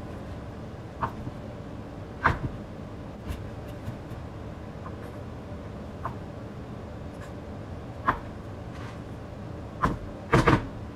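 Kitchen knife cutting cooked chicken breast on a wooden cutting board: short, irregular knocks of the blade meeting the board a second or two apart, the loudest a quick pair near the end, over a steady low hum.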